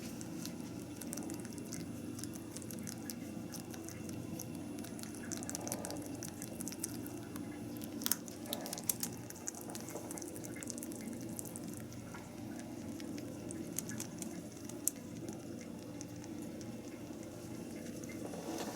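Rabbit drinking: its tongue laps with quick, small, wet licking clicks over a steady low room hum. A few louder clicks come about eight and nine seconds in, and another near fifteen seconds.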